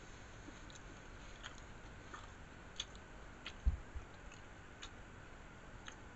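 Faint mouth sounds of a person eating and drinking from a soda can: scattered small clicks, and a single low thump about three and a half seconds in.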